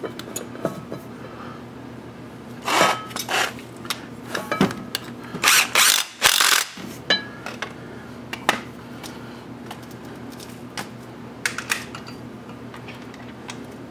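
Metal hand tools clicking and clanking on bolts while the rear brake caliper bracket of a Honda GL1500 Gold Wing is bolted up. The clanks come in two bunches, about three seconds in and around the middle, over a steady low hum.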